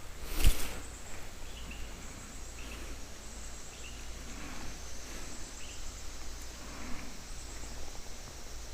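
Outdoor background noise with faint insect chirping over a steady low rumble, and one sharp knock about half a second in.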